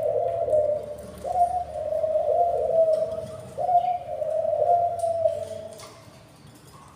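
A bird's low cooing calls: three long notes about two seconds each, each starting on a higher step and sliding down, dying away near the end.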